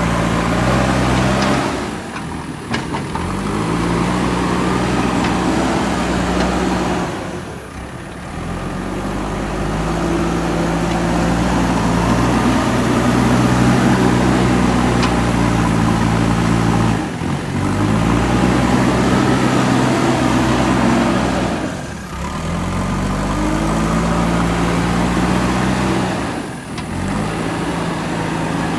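JCB 3DX backhoe loader's diesel engine running steadily. Several times its note sags and climbs back up as the load changes.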